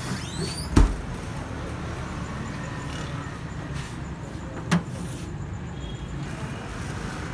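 Steady street and traffic noise, broken by two sharp knocks: a loud one about a second in and a smaller one near five seconds, as stacked plastic food containers are handled at a chest freezer and set down on a steel counter.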